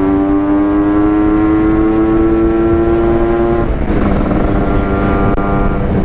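Kawasaki Ninja 150 RR's single-cylinder two-stroke engine running under way, its pitch creeping slowly upward. About four seconds in the pitch dips a little, then holds steady.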